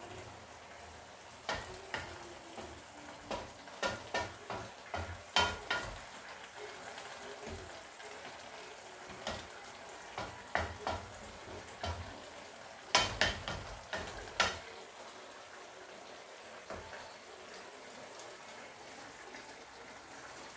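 A cooking utensil stirring a wok of simmering pechay and fried tofu stew, knocking and scraping against the wok in clusters of sharp clicks from about a second and a half in until about fourteen seconds in. A steady hiss from the simmering broth runs underneath and is left on its own near the end.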